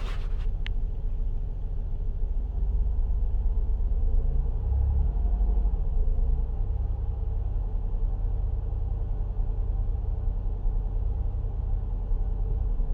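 Cabin sound of a 2005 Chrysler Town & Country minivan under way: a steady low rumble from the road and its 3.8-litre V6, swelling a little about four to six seconds in. The owner reports a knock when accelerating, but no distinct knock stands out from the rumble.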